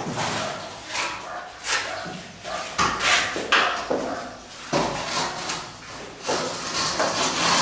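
Steel plastering trowel scraping and slapping wet cement mortar: a series of irregular scrapes and knocks as mortar is scooped from a basin and spread on a brick wall.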